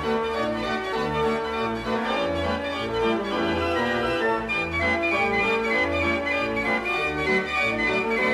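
Organ music: a melody of held notes over a regular low bass line.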